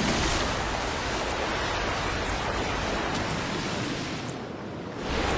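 Steady rushing of running water, an even wash with no distinct splashes. It dips slightly about four and a half seconds in and swells again just before the end.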